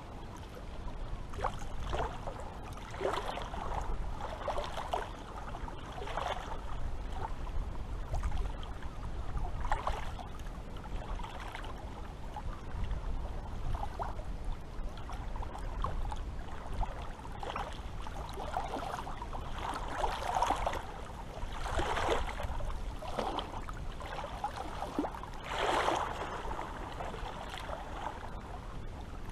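Small waves lapping and splashing at the water's edge, in irregular slaps every second or two, over a low steady rumble.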